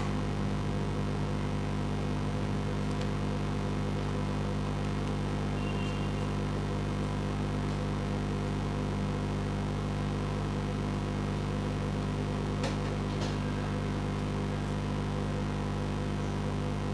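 A steady low hum at constant loudness, with a few faint clicks.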